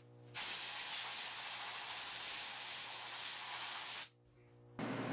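Compressed-air blow gun blowing onto a fresh weld on a car's steel rocker panel to cool it and avoid warping. It makes a steady hiss that starts about half a second in and cuts off abruptly after about three and a half seconds.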